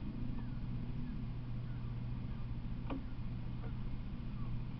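Outdoor background: a steady low hum over even noise, with a few faint short chirps and one sharp click about three seconds in. No train is passing.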